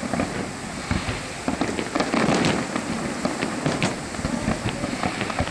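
Fireworks display: a rapid, unbroken run of sharp bangs from bursting shells over dense crackling.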